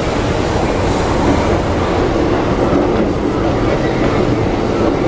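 Keikyu electric train running past over the level crossing: a steady, loud noise of wheels on rails.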